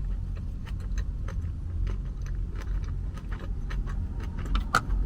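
Close-up eating sounds, a scattered string of small clicks and taps from chewing and utensils, over a steady low rumble of road traffic heard from inside a parked car.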